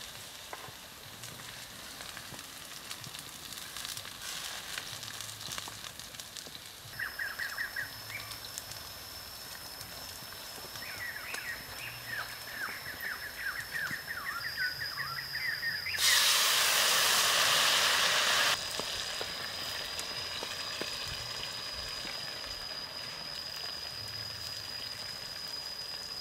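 Aromatics and oil sizzling and frying in a hot wok over a wood fire, a steady hiss with fine crackles. About sixteen seconds in, a much louder rush of hiss lasts about two and a half seconds, then settles back.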